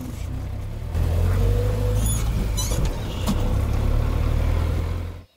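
UAZ off-road vehicle driving, its engine a steady low drone that gets louder about a second in and cuts off suddenly near the end.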